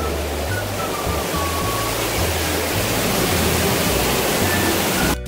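Steady rush of falling water, like a waterfall, with ambient music under it: slow low bass notes and a soft, falling high melody.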